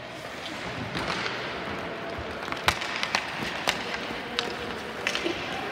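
Hockey sticks cracking against the puck and ice, a series of sharp clacks with the loudest about two and a half seconds in, over the scrape of skates on the ice.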